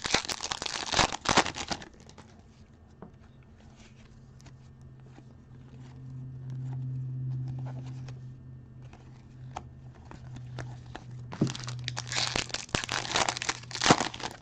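Plastic trading-card pack wrappers being torn open and crinkled, in two bouts: one at the start and one near the end.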